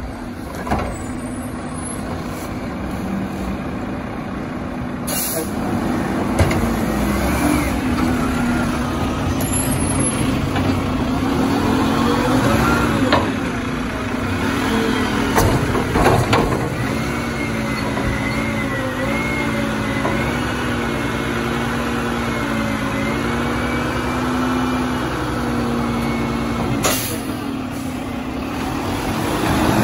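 Mack garbage truck with a Curotto Can arm working the carts: the diesel engine revs up and down in steps to drive the hydraulics as the arm lifts a cart overhead and dumps it, with a couple of short air-brake hisses.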